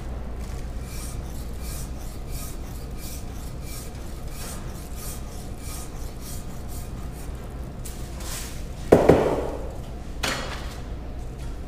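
A perforated hand rasp being stroked over a plaster positive model, shaving plaster off in even strokes at about two a second. Near the end the strokes stop and two louder knocks sound about a second apart.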